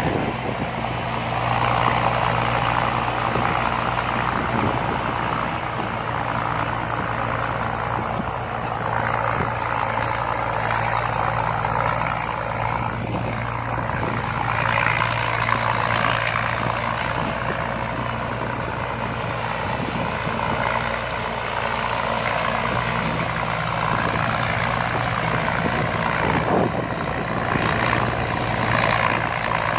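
Rice combine harvester running steadily: a low engine hum under broad mechanical noise that holds level throughout.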